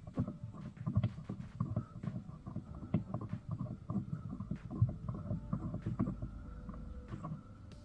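Irregular soft low knocks and clicks, several a second, like handling of tools and parts, over a faint steady high hum.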